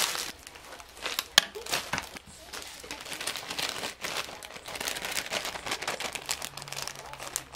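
Thin plastic packaging and a zip-top bag crinkling and rustling in an irregular run as salad greens are handled and packed, with one sharp click about a second and a half in.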